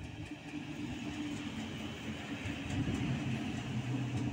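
Battery-electric locomotive rolling past close by at low speed: wheels running on the rails with a steady low hum from the locomotive, getting louder as it draws level about three seconds in. There is no diesel engine sound.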